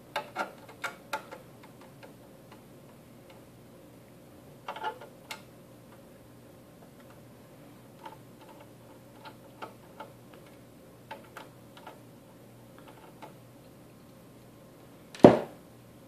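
Scattered light clicks and ticks of a magnetic-tip screwdriver turning screws out of an access point's case, with one louder knock near the end.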